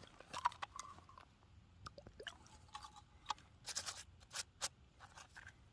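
Small hand spray bottle being pumped to wet a rock: faint clicks of the trigger and short spritzes, with a quick run of several spritzes about four seconds in, amid light scrapes of the rock being handled.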